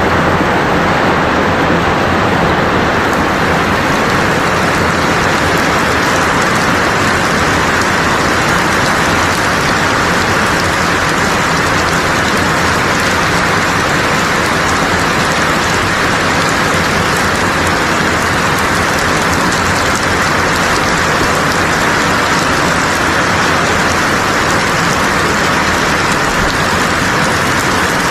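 Steady, loud noise of water, even and unchanging, with no distinct splashes or other events standing out.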